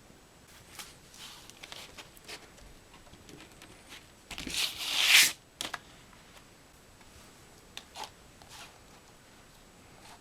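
Paper and card packaging of a vinyl record being handled: scattered short rustles and taps, and one longer papery swish about four to five seconds in that grows louder and stops abruptly.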